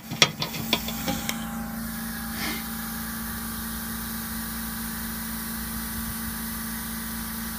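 A few sharp clicks and knocks in the first second or so as the air die grinder is handled close to the microphone, its bristle disc not spinning. Then a steady low machine hum with a hiss over it.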